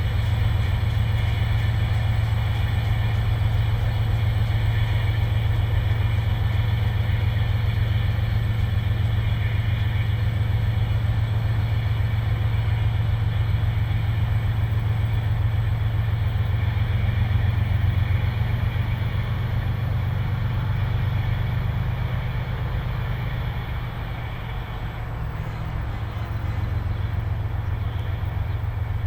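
Locomotive running with a steady low rumble and a faint high whine above it. The rumble dips slightly about three-quarters of the way through, then picks back up.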